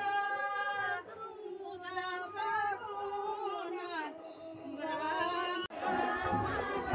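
A group of women singing a mangal geet, a traditional auspicious folk song, together in long held, drawn-out notes. Near the end the singing breaks off and a louder, busier mix of voices takes over.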